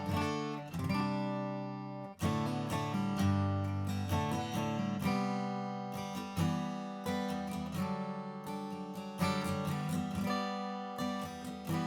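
Furch-built Stanford D5 Pro rosewood-and-spruce dreadnought acoustic guitar, strung with phosphor bronze light strings and played with a pick: a run of picked notes and strummed chords that ring on between strokes.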